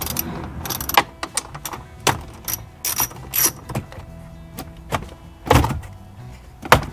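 Hand ratchet clicking in short irregular runs and tools knocking against the dash as the bolts holding the car radio are undone, with a louder knock about two thirds of the way in and another near the end.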